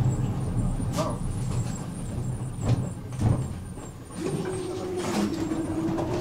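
Tram running, heard from inside the car: a low steady rumble with a few sharp knocks, then a steady hum from about four seconds in.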